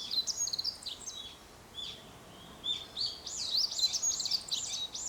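Birds singing: varied short high chirps, then from about halfway a bird repeating a quick rising-and-falling note about three times a second.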